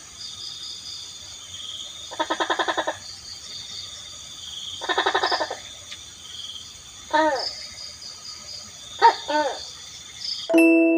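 Night forest ambience: insects trilling steadily and high, two bursts of rapid pulsed animal calls, and several short rising-and-falling calls. A bell-like chime note strikes near the end.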